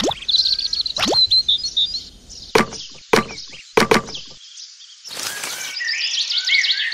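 Small birds chirping in quick runs of high notes, broken in the middle by several sharp clicks, two of them in quick succession.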